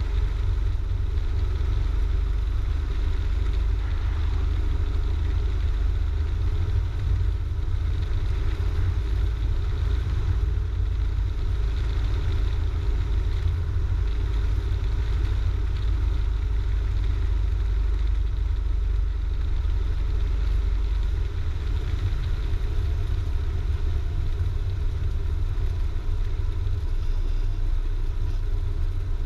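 Cessna 172's piston engine and propeller droning steadily in the cockpit at reduced landing power. The low rumble eases a little about two-thirds of the way through.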